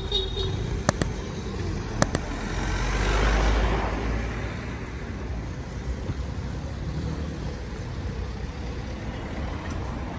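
Street traffic: a vehicle passes close by, swelling and fading about three seconds in, over a steady hum of traffic. A couple of sharp clicks sound in the first two seconds.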